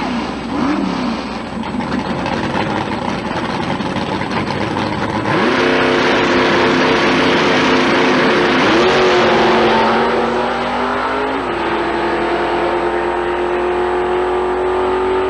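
Drag racing car engine blipping at the start line, then launching at full throttle about five seconds in. Its note climbs, drops back and holds steady as the car runs down the strip.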